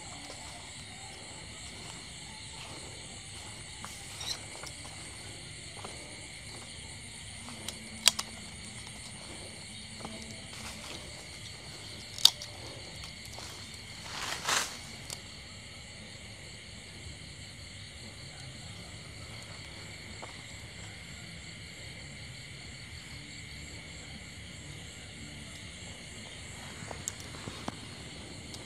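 Steady chorus of night insects, several high trilling tones held throughout. A few sharp clicks or snaps cut through, with a short rustle about halfway.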